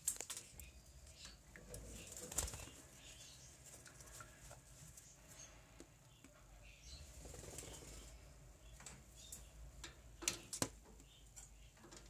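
Ring-necked parakeet bathing in a stainless-steel water bowl: fluttering wings and splashing water in short, irregular bursts, the loudest a little past two seconds in and twice near the ten-second mark.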